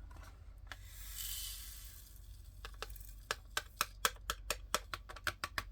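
Diamond-painting resin drills poured from a cut plastic bag into a small plastic container: a soft hiss of the pour, then a run of sharp little clicks, about three or four a second, in the second half.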